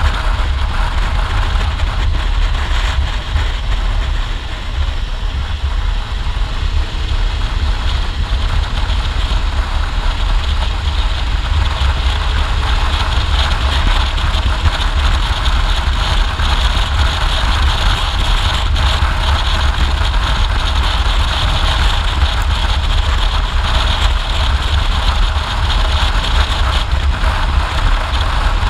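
Motorcycle riding at steady road speed: engine running under wind rushing over the microphone, with a heavy low rumble from the wind and no change in pace.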